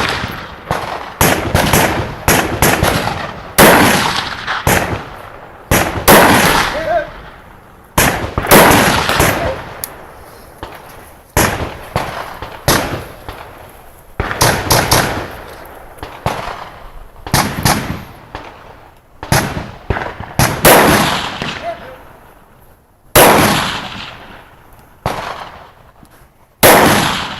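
Rifle shots in a long irregular string, about thirty loud cracks, sometimes two or three in quick succession. Each crack is followed by an echo that dies away over a second or so.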